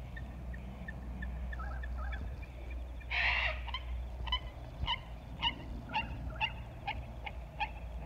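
Waterbirds calling on a lake: one loud, harsh call about three seconds in, then a run of about eight short, clipped calls at roughly two a second, with a few fainter calls before. A low steady rumble lies underneath.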